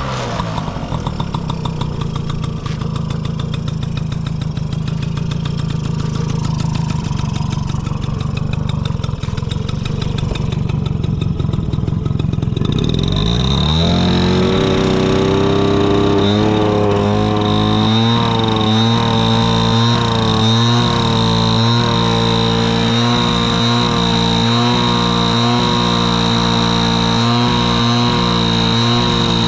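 Honda Motocompo's 49 cc two-stroke single-cylinder engine idling steadily, then revved up about halfway through and held at higher revs with small rises and falls, dropping back at the very end. It runs with no abnormal noises and revs up well.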